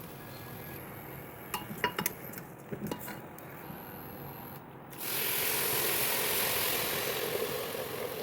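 A few light clinks and knocks, like kitchen utensils against a pot, then a loud, steady hiss that starts suddenly about five seconds in.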